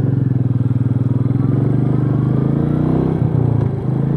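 Royal Enfield Meteor 350's single-cylinder engine pulling hard under acceleration, its pitch slowly climbing, with a short dip about three and a half seconds in at a gear change.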